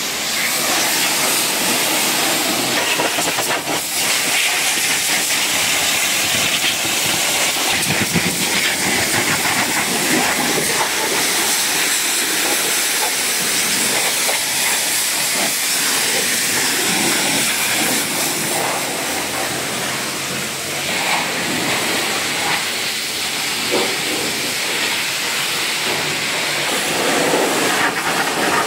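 A steady hiss, with a wet wash mitt scrubbing soapy car paint and then a tyre and plastic hubcap.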